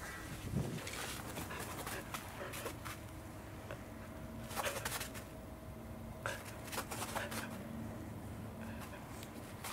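Welsh corgi making small whining sounds while it waits for the ball, among scattered light clicks and rustles.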